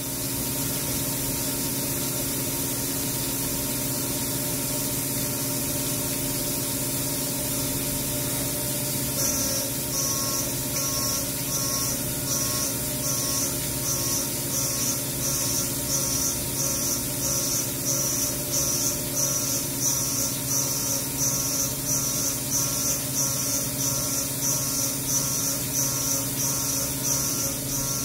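CNC milling machine spindle running under flood coolant spray while a 3/16-inch end mill dynamic-mills a pocket. From about nine seconds in, a high cutting whine rises and falls about one and a half times a second as the cutter loops through the toolpath.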